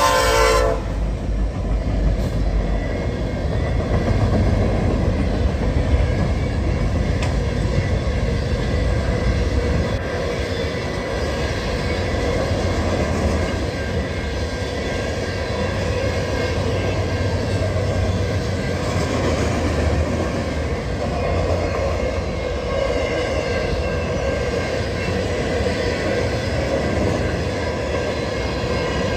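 Train passing: its horn cuts off about a second in, then the steady rumble and rattle of rail cars rolling by.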